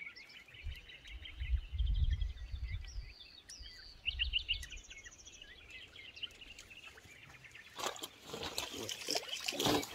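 Small birds chirping in quick repeated calls. A low rumble is heard for a couple of seconds near the start, and a burst of rustling noise comes near the end.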